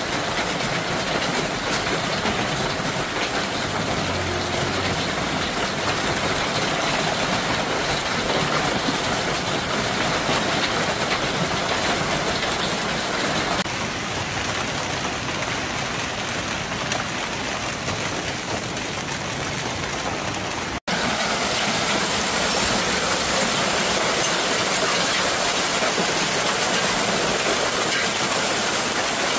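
Heavy hail and pouring rain falling on a street, a dense, steady hiss of impacts, with abrupt jumps where one recording cuts to the next.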